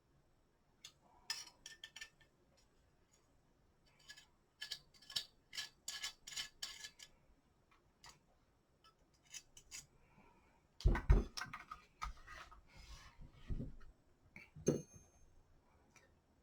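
Small metal clicks and ticks of screws and a hand tool being worked on a rifle quad rail during assembly, with a few louder knocks and dull thuds about two-thirds of the way through as the parts are handled.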